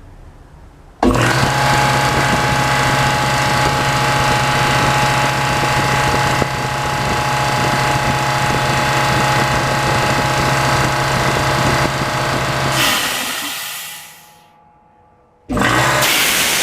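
DeWalt DXCM601 60-gallon, 3.7 hp single-stage air compressor switching on about a second in and running steadily with a strong low hum. Near the end its running gives way to a rush of air hiss that fades out, followed by a second short burst of hiss.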